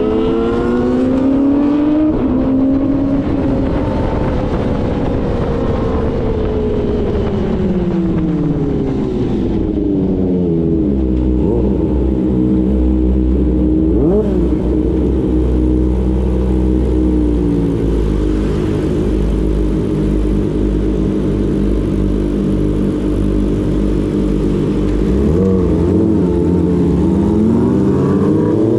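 Kawasaki ZX-25R's high-revving 250 cc inline-four running through an aftermarket R9 exhaust. It revs up at the start, winds down over several seconds, then idles steadily with two short throttle blips, and picks up revs again near the end as the bike pulls away.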